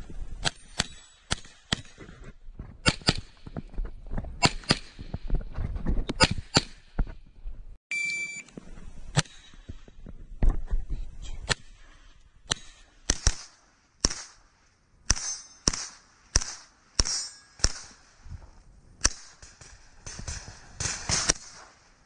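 Rapid gunfire from a Grand Power Stribog 9mm pistol-caliber carbine, shot after shot, mostly in quick double taps, with short pauses between strings.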